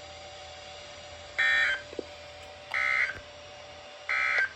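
NOAA Weather Radio EAS/SAME end-of-message data signal: three short, identical buzzy digital bursts about a second and a half apart, marking the end of the alert test broadcast.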